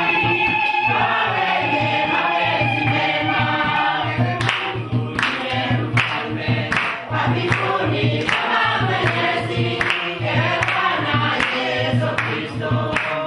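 A choir singing a gospel-style song over a steady low beat, with sharp drum strikes joining in about four seconds in.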